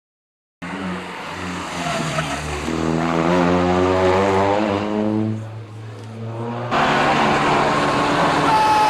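A rally car's engine revving hard, its pitch climbing again and again as it works through the gears, then falling away as the car passes. After an abrupt cut, a second rally car is loud and close, with a brief high squeal near the end.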